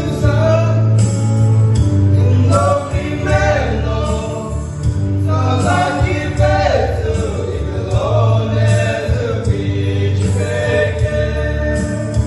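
A group of male voices singing a gospel song together into microphones, over a recorded instrumental backing track with a steady bass.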